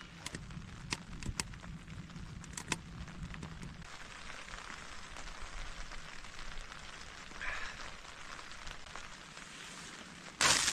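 Steady rain hissing on a tent, with a few sharp clicks in the first three seconds. A brief, loud noise comes near the end.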